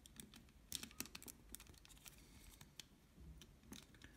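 Faint, scattered small clicks and ticks of plastic parts being handled: fingers pushing and twisting the spring-loaded plastic part of a Ricoh GR lens barrel to trip its protective lens-cover mechanism.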